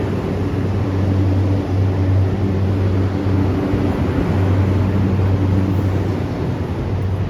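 EF64 DC electric locomotive humming steadily, a low even hum with several steady tones above it, briefly dipping twice.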